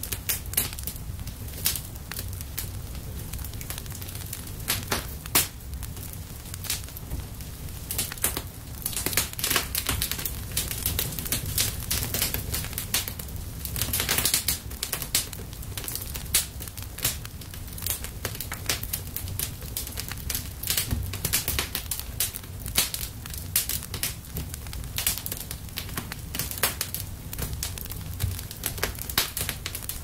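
Fire crackling: a steady low rumble under irregular sharp snaps and pops, which come thicker at some moments than others.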